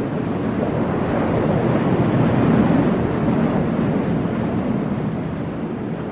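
Jet aircraft fly-by: a rushing engine noise that swells to its loudest about two and a half seconds in, then slowly fades as the jet passes.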